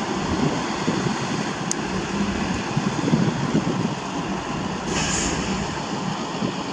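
A slow-moving track maintenance train, a USP 5000 RT ballast regulator and hopper wagons, rolling past with its diesel engines running and steel wheels rumbling on the rails. A short hiss comes about five seconds in.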